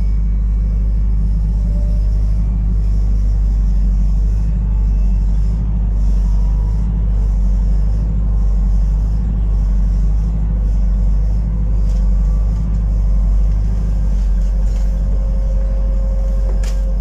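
New Routemaster diesel-electric hybrid double-decker bus heard from inside the passenger saloon while under way: a steady low rumble from the drivetrain and road. A faint steady whine comes in during the last few seconds, and a single sharp knock sounds just before the end.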